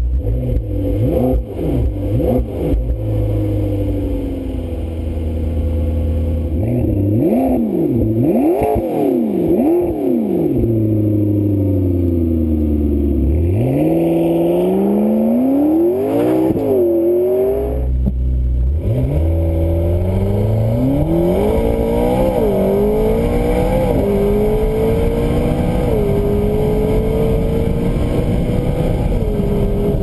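McLaren 650S Spider's twin-turbo 3.8-litre V8 revved up and down several times, then accelerating hard at full throttle. Its pitch climbs in long sweeps and drops briefly at each upshift.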